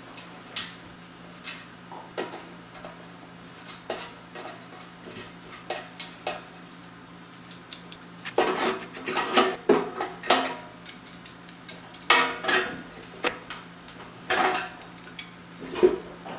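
Metal clinks and clanks of bolts, nuts and tools knocking against a steel ammo can as a feeder motor is fitted and fastened inside it. The knocks are sparse at first and come in quicker clusters from about halfway through. A steady low hum runs underneath.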